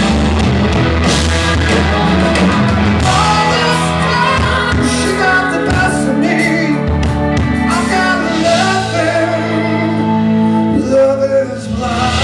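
Rock band playing live in a large room: electric guitar, bass and drums with a sung vocal line.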